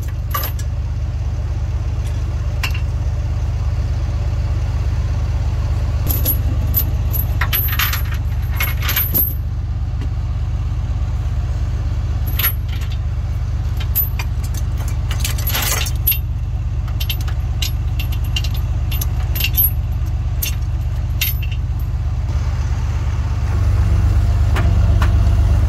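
Steel tow chain clinking and rattling in short spells as it is wrapped around a semi tractor's rear differential, over a truck engine idling steadily. The engine gets louder near the end.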